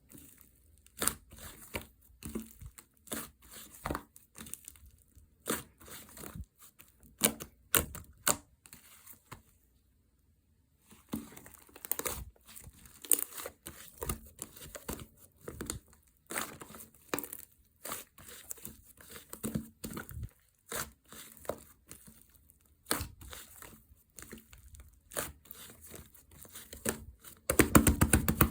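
Slime being squeezed, pressed and stretched by hand, giving irregular crackling pops and clicks. The pops stop for about a second and a half around ten seconds in, and near the end they come in a fast, dense run that is the loudest part.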